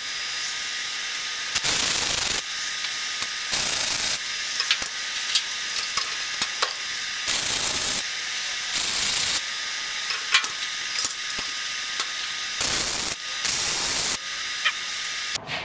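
Miller MIG welder's arc crackling and hissing as a steel upright is welded, with several brief louder surges of under a second each.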